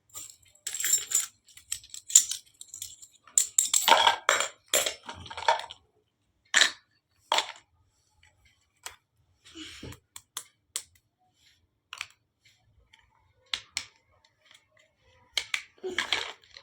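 Miniature steel toy kitchen pieces being handled and set down: irregular small clinks and taps, mixed with short bursts of rustling from the packaging, busiest in the first six seconds and near the end.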